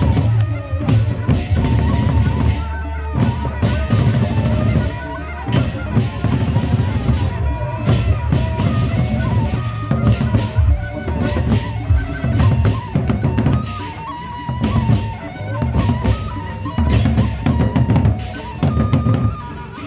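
Gendang beleq ensemble, the Sasak gamelan of large double-headed barrel drums beaten with sticks, playing a dense, driving rhythm. Metal clashes and short ringing gong tones sound over the deep drum beats.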